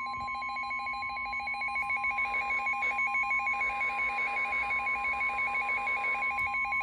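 NOAA Weather Radio warning alarm: a steady 1050 Hz tone with a fast alternating two-pitch warble over it, the alert that comes before a severe thunderstorm warning is read. The warble grows louder about two seconds in.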